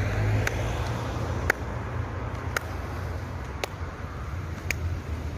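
Steady low rumble of a vehicle, with a sharp click repeating about once a second.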